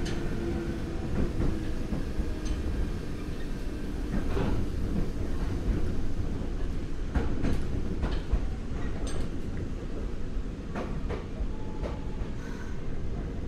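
Nagoya Municipal Subway 3000 series armature-chopper train running, heard from inside the car. A steady heavy rumble of wheels on rail, with scattered sharp clicks from the track. A faint tone drifts down and fades in the first second or so.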